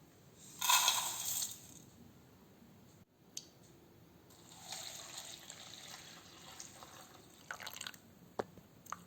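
Water pouring and splashing in short bursts: a strong splash about a second in and a longer, softer pour a few seconds later, with a few light knocks near the end.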